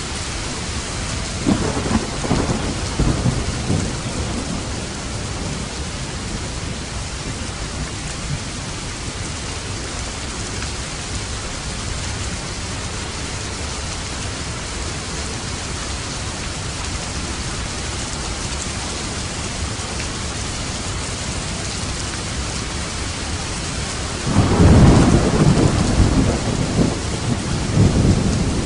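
Steady rain falling, with a roll of thunder rumbling a couple of seconds in and a louder, longer peal near the end.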